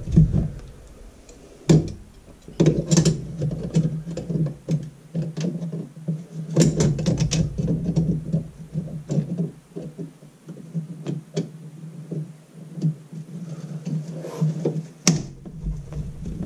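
Pliers and hands working the slip nuts of a metal sink P-trap: irregular clicks, scrapes and knocks of metal on metal as the nuts are gripped and turned loose. A steady low hum runs underneath, and one sharp click near the end is the loudest moment.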